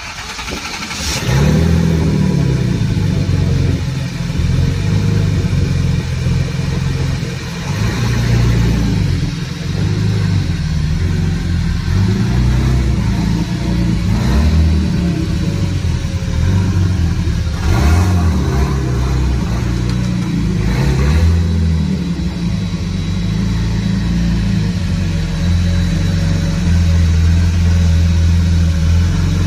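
Turbocharged L28 straight-six of a 1977 Datsun 280Z running through a 3-inch exhaust, with revs rising and falling repeatedly as the car is driven slowly. It settles to a steadier idle near the end.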